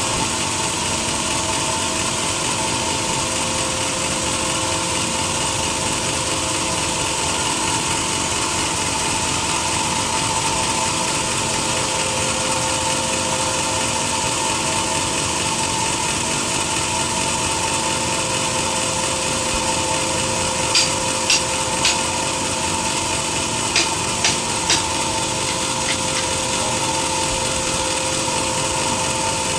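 A sawmill saw running steadily through a teak log, with a constant motor hum under the noise of the cut. About two-thirds of the way through there are two quick groups of three sharp clicks.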